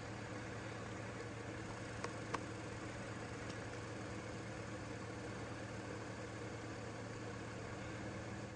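Steady low motor hum, with two sharp clicks a fraction of a second apart about two seconds in.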